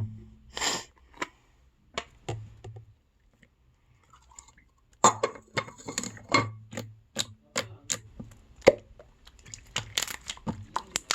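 Irregular crackling clicks from handling a packaged jelly slime and its plastic wrapping, with a quiet pause of a couple of seconds in the middle.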